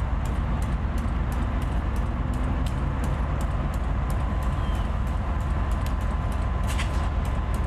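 Diesel road-switcher locomotive engine running steadily with a deep low hum, a faint steady whine above it and rapid light ticks several times a second.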